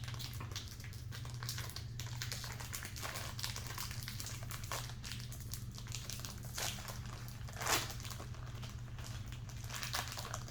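Plastic snack-cake wrapper crinkling and rustling as it is torn open, with one louder crackle about three quarters of the way through.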